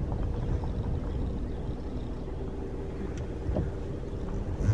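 Low, steady rumble of a car's engine and road noise heard inside the cabin while driving slowly, with a faint steady hum and a few light ticks.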